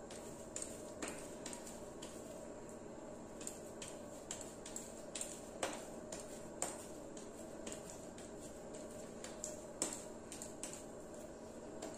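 Hands shaping stuffed semolina dough balls: scattered soft clicks and taps, some handling sounds against a glass bowl, over a steady faint room hum.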